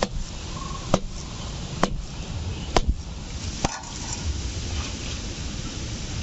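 Pulp-covered seeds of ripe palmyra palm fruit being beaten against one another: five dull knocks about a second apart, stopping a little before four seconds in.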